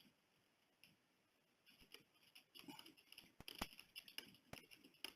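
Faint scattered clicks and light knocks, thickening into a run of sharper knocks in the second half.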